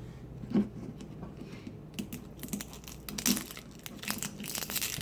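Plastic doll packaging being handled and torn open: scattered clicks, then denser crinkling and tearing from about two seconds in.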